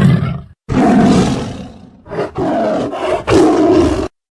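Tiger roaring: a string of rough roars, each about a second long, cut off abruptly near the end.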